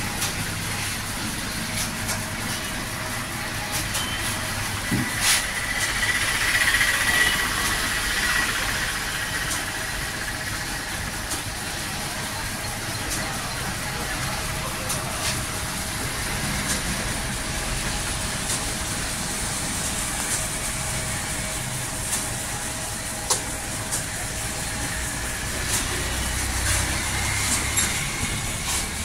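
Electric motor running steadily and belt-driving a large wire-spoked winding reel, a constant mechanical hum with a faint steady whine and scattered light ticks. A higher whine swells briefly about six to eight seconds in.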